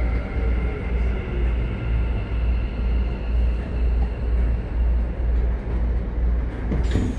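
Keikyu 1000 series electric train slowing into a station, heard from inside the car: a pulsing low rumble of wheels on rail with thin steady whines from its Mitsubishi IGBT-VVVF inverter. A sudden sharp noise comes near the end.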